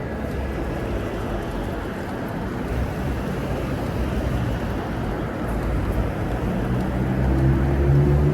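Steady city street traffic noise, with a vehicle growing louder near the end.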